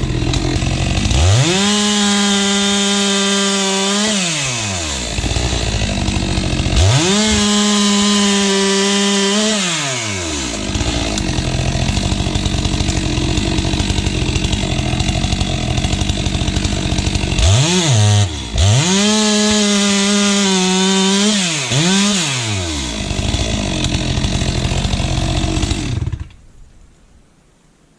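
Stihl MS462 two-stroke chainsaw bucking firewood logs: the engine revs up to a high, steady full-throttle pitch and drops back three times, with noisier stretches of running in the cut between, and the sound stops abruptly near the end. The chain has just been hand-filed sharp and is cutting well.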